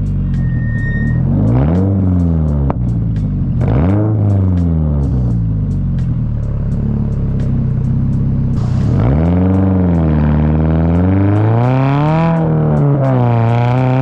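Toyota GR86's flat-four engine through a Tomei titanium 60S cat-back exhaust, blipped from idle twice, then run steadily and revved higher about two-thirds of the way in, with the revs swinging up and down repeatedly near the end.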